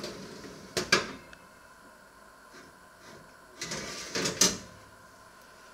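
Metal oven rack, loaded with a lidded cast-iron pot on a wooden board, slid into an oven on its runners, with a couple of sharp clacks about a second in. A few seconds later a second cluster of metallic clunks and scrapes as the lower oven tray is handled, the loudest clunk near the end of it.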